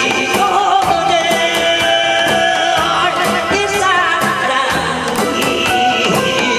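A singer performing a pumba folk song through a microphone and PA, holding long wavering notes, over music with drum strikes.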